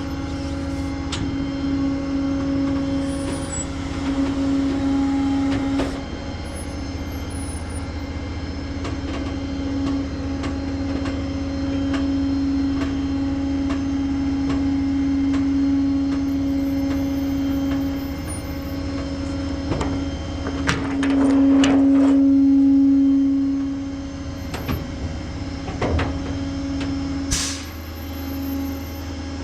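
Tow truck running with its hydraulics engaged, a steady whine over the engine hum while the car is winched on, rising for a couple of seconds about two-thirds through. Metal clanks and rattles come about 20 seconds in, and there is a sharp click near the end.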